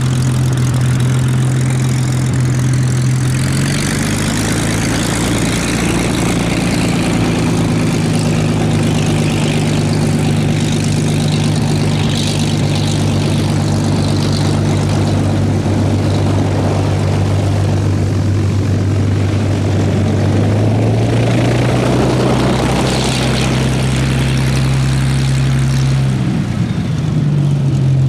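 Rolls-Royce Merlin III V12 engine of a Hawker Hurricane Mk.I running at low power while the fighter taxis, propeller turning. The steady engine note drops a few seconds in and rises again about two-thirds of the way through.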